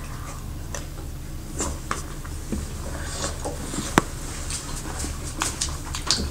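People eating at close range: chewing and wet mouth smacks, with a sharp click about four seconds in, over a steady low hum.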